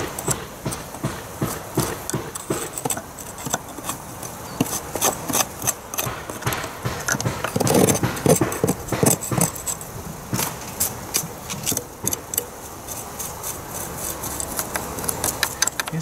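Metal hand scraper scratching and scraping along a wooden sill in the wall cavity of a bee removal, raking out dust, dead bees and old comb debris in a quick string of short scrapes and clicks.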